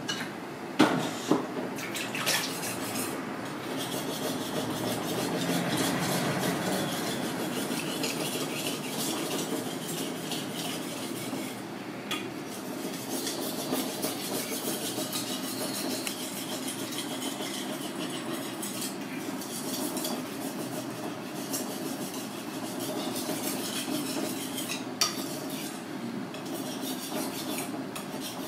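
Steel blade of a hand-forged Japanese kitchen knife being stroked back and forth on a water-soaked whetstone: a continuous wet, gritty scraping as the edge is honed. A few sharp knocks sound about a second in and once near the end.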